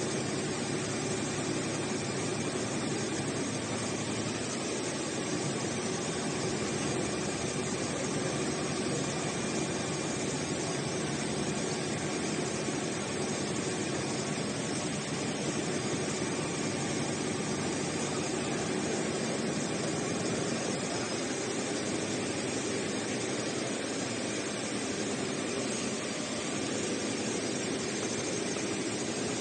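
Roll-to-roll heating wire sewing machine running steadily: an even mechanical noise with a faint constant hum underneath.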